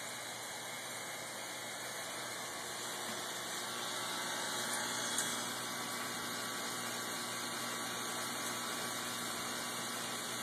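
Steady hiss of aquarium equipment running: water moving and a pump running, with a faint click about five seconds in.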